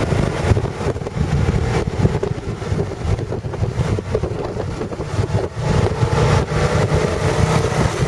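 Motorcycle running at road speed, heard from the rider's own bike, with wind buffeting the microphone.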